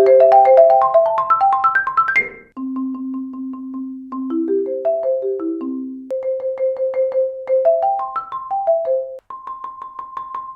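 Marimba played with Marimba One Wave Wrap yarn mallets: fast runs of quickly repeated notes moving up and down. The playing breaks off sharply about two seconds in, then carries on more quietly.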